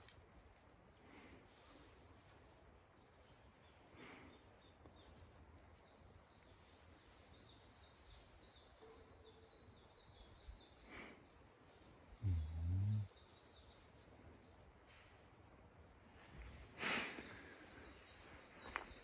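Small birds chirping repeatedly in quiet outdoor ambience, with a loud, brief low thud about twelve seconds in and a short rustle near the end.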